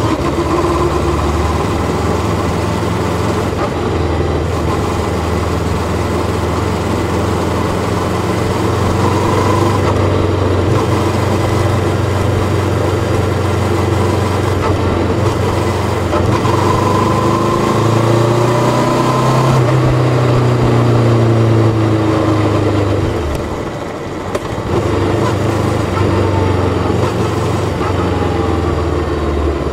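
Bristol Venturi 500 motorcycle engine running under way. Its pitch climbs through the middle, then it eases off briefly about three-quarters through before pulling again.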